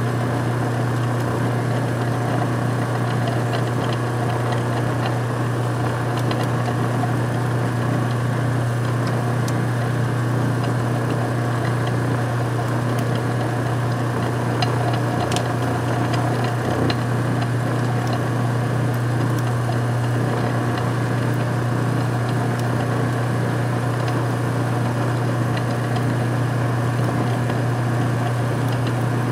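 Small benchtop metal lathe running steadily at constant speed while a letter D twist drill in the tailstock chuck bores a hole in the spinning part: an even motor hum, with a few faint ticks near the middle.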